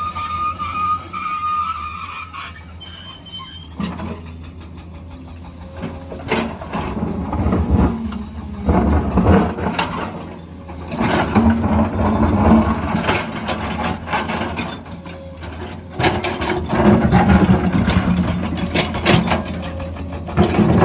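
Excavator at work: its diesel engine runs steadily under repeated scraping and knocking. A high, steady squeal sounds for the first two seconds.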